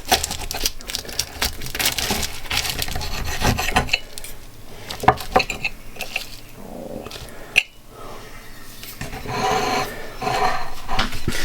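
A knife sawing through the flaky puff pastry crust of a baked pie, a crackly rasping for the first few seconds, then quieter cutting with a few sharp clinks of the knife against the plate.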